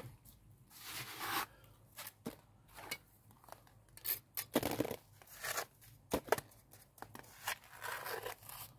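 Steel pointing trowel scraping lime mortar off a small hawk and packing it into the joints and voids around a stone in a wall: irregular gritty scrapes with light clicks of metal on stone.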